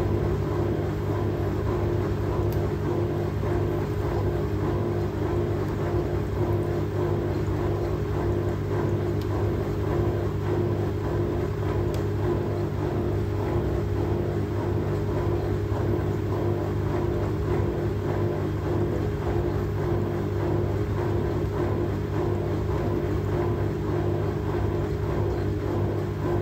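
Fisher & Paykel WL8060P1 washing machine running with a steady, unbroken motor hum.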